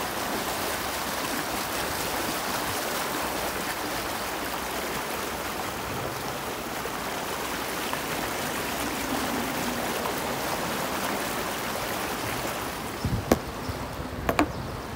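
Steady rushing splash of flood water pushed aside by the front wheel of a Renault Kangoo Z.E. electric van wading through knee-deep water. Near the end come a few sharp knocks, one about two seconds before the end and a quick pair just after.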